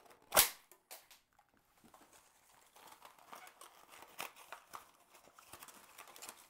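A paper Christmas cracker (Knallbonbon) pulled apart, its snap going off with one sharp crack about half a second in. From about three seconds in come quieter paper crinkling and tearing sounds as the cracker's contents are taken out.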